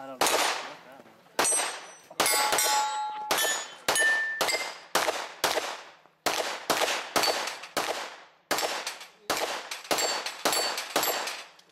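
Pistol-caliber carbine firing a string of about twenty shots, roughly two a second, at steel targets, several hits leaving the steel ringing.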